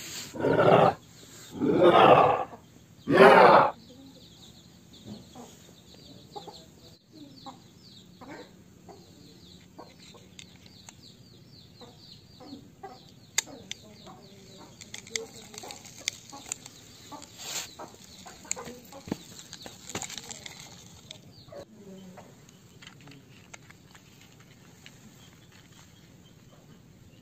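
Four loud, drawn-out animal calls in quick succession, then small plastic clicks and taps as toy vehicles are set down and pushed on concrete, with faint high chirping in the background.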